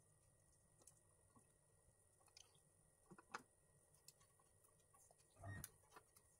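Near silence with a few faint clicks and a short, soft handling noise about five and a half seconds in, from hands wrapping black electrical tape around a spliced wire.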